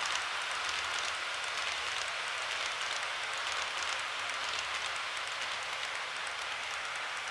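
Tomix model of a JR E231-0 series commuter train running along the layout track: a steady rolling hiss from the wheels and motor, with faint fine ticking throughout.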